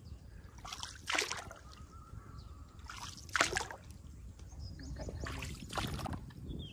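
Water splashing and trickling in three short strokes a couple of seconds apart, like a paddle dipping beside a small boat on a stream, over a low steady rumble.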